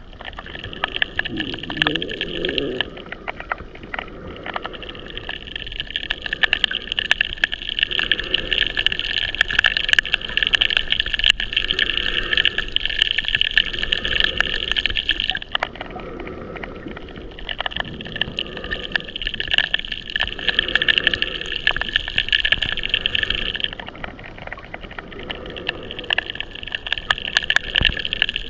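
Underwater coral reef soundscape: a steady hiss full of sharp scattered clicks and crackles, with soft low swells now and then. The hiss thins briefly twice, about halfway through and again near the end.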